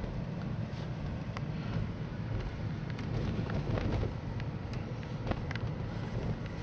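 A car driving slowly, heard from inside the cabin: a steady low rumble of engine and tyres, with a few faint clicks and rattles.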